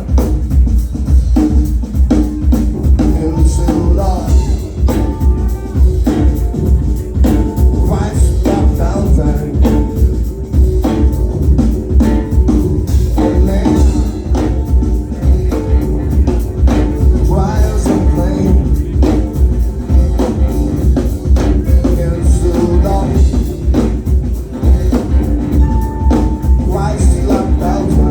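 Live band music with a loud, dense drum groove over heavy bass.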